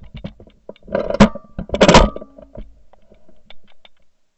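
Two shotgun blasts, the first about a second in and the second just under a second later, each with a brief metallic ring after it, picked up by a gun-mounted camera's microphone. Smaller sharp clicks and knocks come between and after the blasts.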